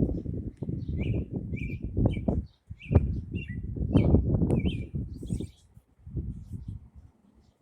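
A bird chirping a run of short, high notes over about four seconds, several of them slurring downward. Loud low rumbling noise underneath, fading out near the end.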